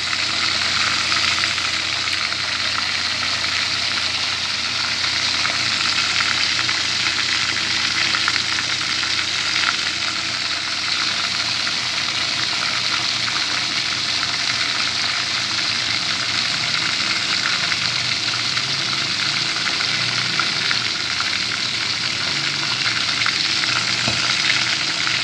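Chicken wings frying in hot oil in a lidded pan, a steady sizzle.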